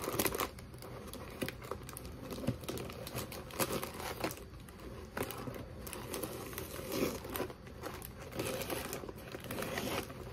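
Paper microwave popcorn bag crinkling as its sealed top is pulled open by hand, the paper tearing apart in irregular crackles, busiest at the start.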